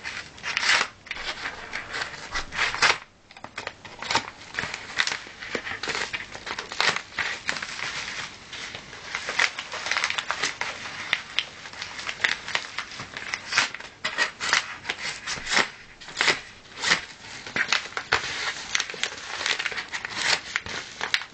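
Packaging being worked open by hand: a steady run of irregular rustling, scraping and clicking as the box resists opening.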